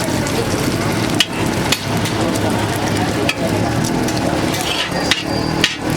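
Food sizzling and frying on a street-stall griddle, a steady hiss with about five sharp knocks scattered through it.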